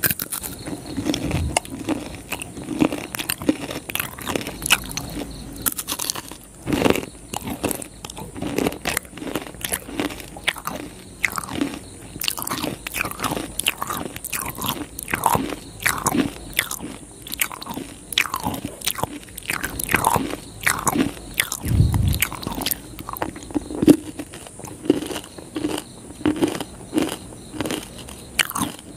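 Close-miked biting and chewing of crisp jalebi: a steady run of crunches and wet mouth clicks.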